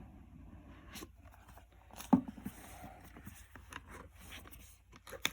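Sealed product packaging being opened by hand: scraping, rustling and tearing, with a few sharp clicks and knocks, the loudest about two seconds in.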